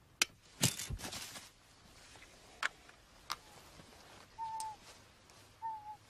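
An eagle trap fired by radio control being sprung: a sharp snap about half a second in, followed by a brief rushing noise and then a few scattered sharp clicks. Near the end come two short whistled bird calls, each dipping slightly in pitch at its end.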